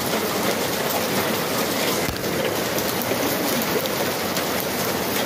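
Heavy rain falling in a thunderstorm, a dense steady hiss with fine pattering ticks.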